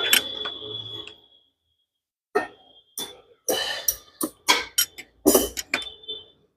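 A pipe wrench knocking and clinking on the steel front fork tube and nut of a Royal Enfield Classic 350 while the loose fork nut is tightened. It is a string of sharp metallic knocks, some with a brief ringing tone, bunched in the second half.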